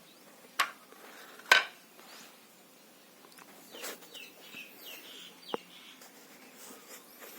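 Two sharp clicks about a second apart, the second louder, then faint bird chirps and a small click.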